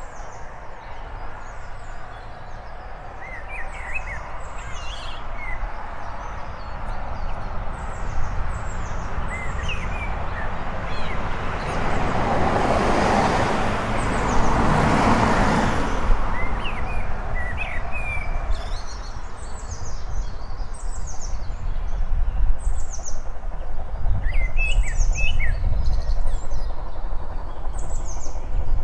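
Birds chirping and singing over the distant low rumble of a steam locomotive working hard with a passenger train, the rumble growing louder toward the end. Midway a rushing noise swells up and dies away over a few seconds.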